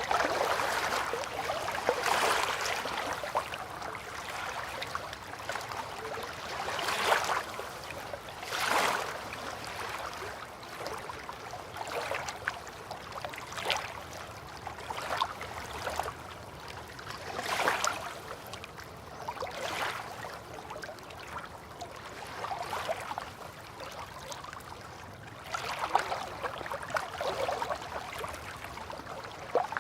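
River water lapping and splashing at the bank in irregular small swells, a few seconds apart, over a steady wash of water.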